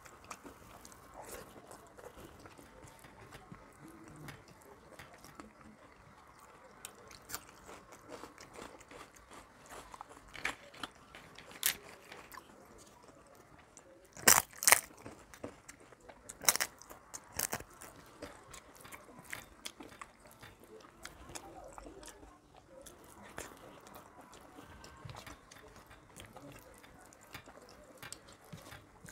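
Close-up eating sounds: soft chewing and wet finger-mixing of rice and curry. About halfway through come several loud, crisp crunches over roughly three seconds as a fried papad is bitten and chewed.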